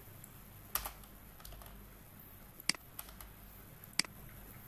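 A handful of separate keystrokes on a computer keyboard, each a short sharp click, spread over a few seconds.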